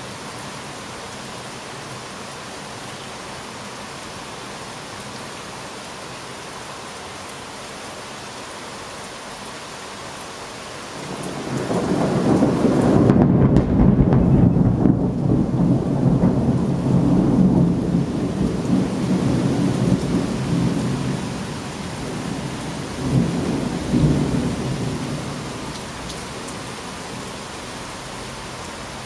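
Steady rain falling, then thunder rolls in about eleven seconds in: a long, loud, low rumble that holds for several seconds, swells again briefly, and dies away under the rain.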